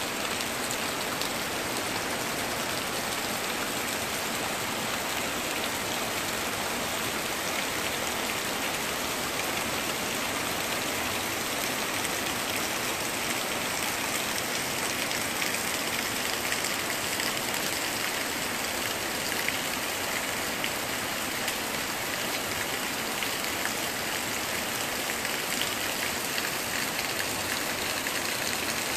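Heavy rain pouring steadily, a dense hiss full of small drop ticks, which the uploader takes for the start of a typhoon.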